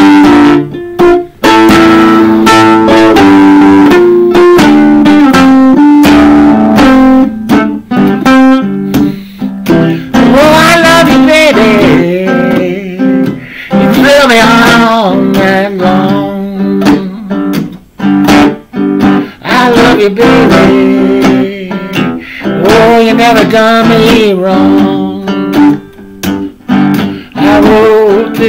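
Solo guitar playing a blues instrumental break: picked single-note lines with bent, wavering notes over a repeating bass figure.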